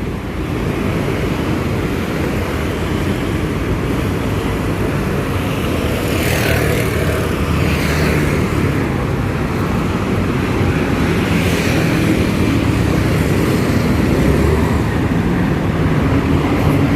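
Street traffic noise: a steady rumble of vehicles on a city road, with a few louder vehicles going past about six, eight and eleven seconds in.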